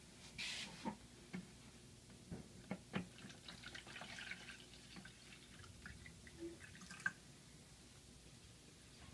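Water poured from a plastic jug into the clear top basin of a homemade Heron's fountain: a faint trickle and splashing, with scattered drips and light knocks of plastic.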